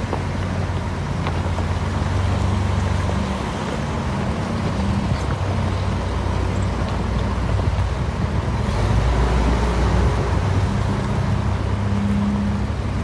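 A motor vehicle's engine running steadily, its low hum mixed with a noisy rumble.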